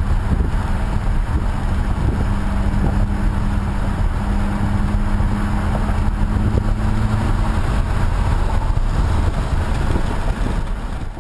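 Mk6 Volkswagen Jetta's AWE Touring Edition aftermarket exhaust running, a steady low rumble with a held drone through the middle. The sound dies away near the end.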